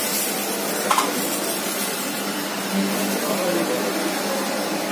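Hand-held hair dryer blowing, a steady loud whooshing hiss with a low hum.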